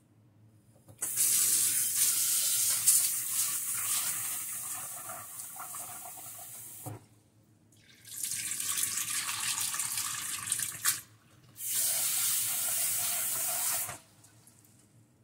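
Kitchen tap water running into a small stainless steel saucepan to rinse rice. It comes in three spells: a long one of about six seconds, then two shorter ones with brief pauses between them, and it stops about a second before the end.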